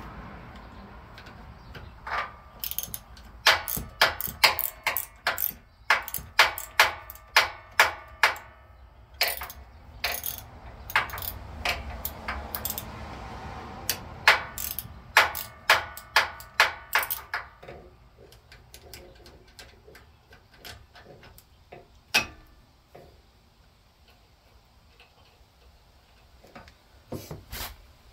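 Hand ratchet wrench clicking in short strokes, two or three clicks a second for about fifteen seconds, as it turns a nut on a lawn tractor's steering linkage, then a few scattered clicks near the end.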